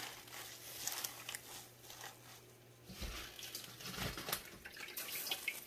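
Raw turnip and mustard greens rustling and crackling as a hand presses the leaves down into a stainless steel pot, with two soft low thumps about three and four seconds in.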